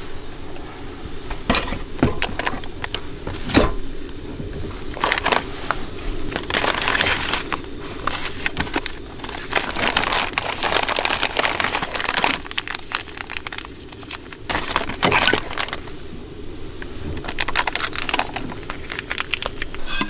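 Hands rummaging through a wicker basket: packets crinkling and rustling, with irregular clicks and light knocks as items are moved about.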